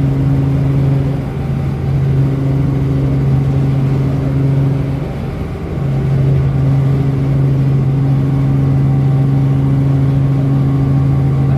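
Helicopter engine and rotor noise heard from inside the cabin in flight: a loud, steady drone with a strong low hum that dips briefly twice.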